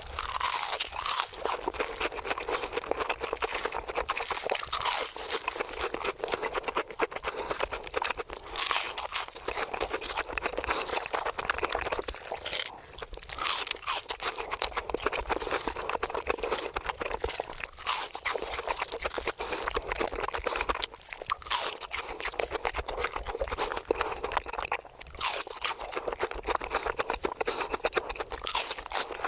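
Continuous crunching as something crisp is chewed, crunch after crunch with only brief lulls.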